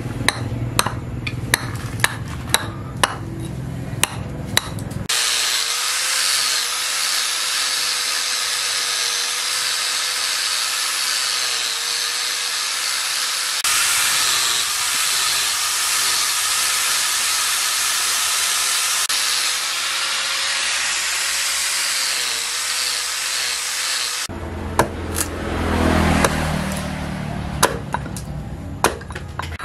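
Hatchet chopping wood against a stump block, sharp strikes about twice a second. About five seconds in, an angle grinder with a sanding disc starts sanding the wood and runs steadily for about twenty seconds. Then the hatchet strikes again near the end.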